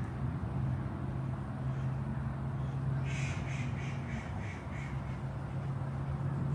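A crow cawing about six times in quick succession, starting about three seconds in, over a steady low hum.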